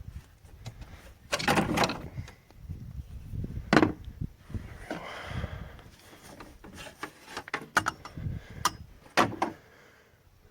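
Knocks and clunks of parts being handled and fitted back into a truck's engine bay, such as the air box being pushed into place. Sharp knocks come about a second and a half in, near four seconds, and several more later on, with a short rubbing scrape about five seconds in.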